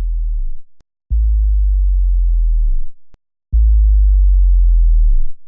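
Deep synthesized bass tones from a music track, each held about a second and a half with a sharp attack and a sudden cutoff, separated by silence. One ends about half a second in, and two more follow.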